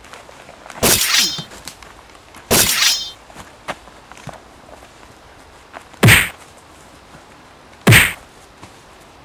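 Blows landing in a staged fight: four loud hits, two longer rasping ones about one and two and a half seconds in, then two short heavy thuds nearer the end, under two seconds apart.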